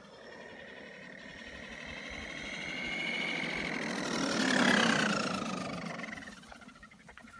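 Brushless electric motor and drivetrain of a Redcat Landslide XTE 1/8-scale RC monster truck whining at speed, with tyre noise on asphalt. It grows louder as the truck approaches, is loudest about four and a half seconds in with the pitch dropping as it passes, then fades as it drives away.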